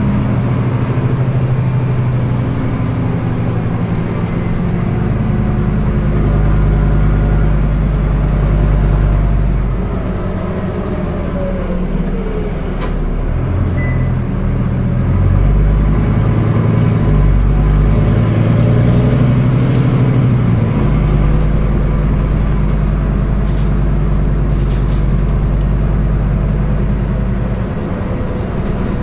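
Scania N320UB city bus's five-cylinder diesel engine running with an open exhaust as the bus drives, heard from inside the cabin. The engine eases off about ten seconds in and pulls again from about fifteen seconds, with a step in pitch a few seconds later.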